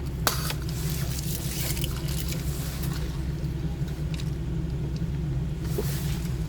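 Steady low rumble of a car's engine and cabin, heard from inside the car, with a couple of faint clicks or rustles near the start.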